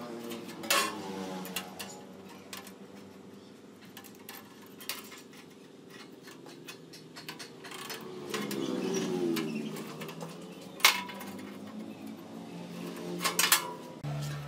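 Sharp metallic clicks and clinks as a perforated steel sheet and a steel ruler are handled and set against each other on a concrete floor: one about a second in, the loudest about eleven seconds in, and a quick pair near the end. Underneath runs a low steady hum that swells and fades between about eight and ten seconds.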